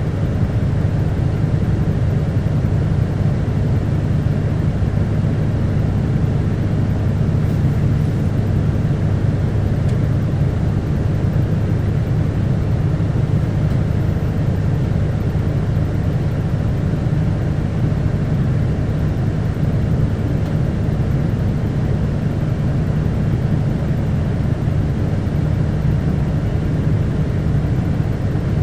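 Onboard running sound of an Isuzu Erga diesel city bus (QKG-KV290N1): a steady engine hum with a strong low drone that holds even throughout.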